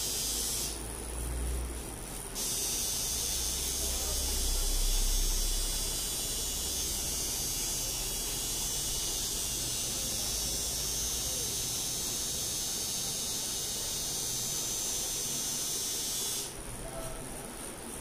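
Pen-style rotary tattoo machine running with a steady high buzz as it works the skin, stopping briefly about a second in, starting again, and stopping once more near the end.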